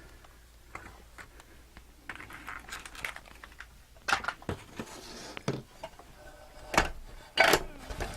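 Irregular light clicks and knocks of small metal parts and hand tools being handled on a workbench, a few sharper taps among them.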